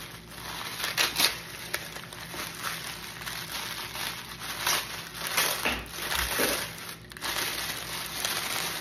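Tissue paper rustling and crinkling in irregular bursts as hands unwrap it from a gift.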